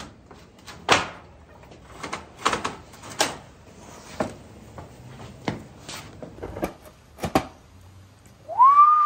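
Irregular knocks and clunks of things being handled and set down in a garage. Near the end comes a whistled note that glides up, then falls.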